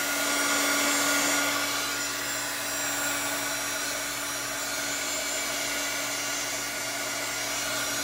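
Heat gun running steadily: a constant blowing rush with a steady hum under it, as it warms fresh epoxy so that it flows.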